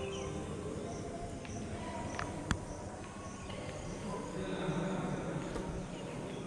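Ambient sound of a temple hall with visitors: a faint murmur and shuffling, a high chirp repeating about twice a second, and one sharp click about two and a half seconds in.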